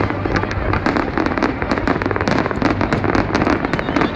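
Fireworks display in full barrage: a dense, continuous stream of rapid bangs and crackling reports, many overlapping every second.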